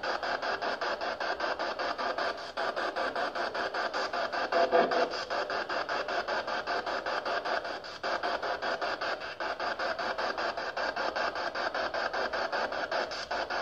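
PSB7 spirit box sweeping through radio stations: a steady hiss of static chopped into rapid, even pulses several times a second, with a brief louder snatch of sound about five seconds in.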